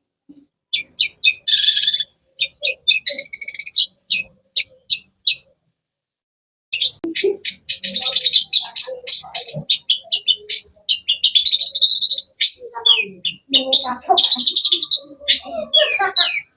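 Long-tailed shrike (cendet) singing: a run of quick, sharp chirps, a pause of about a second, then a dense, varied stream of song with some lower notes mixed in.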